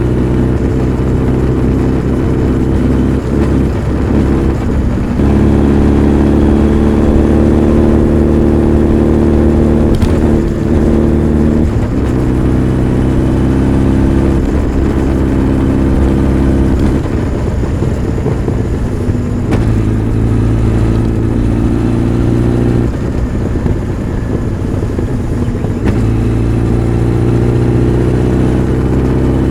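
Honda CB1300 Super Bol d'Or's inline-four engine and exhaust under way, holding a steady pitch for several seconds at a time and changing note several times as the throttle and revs change, rising gently near the end.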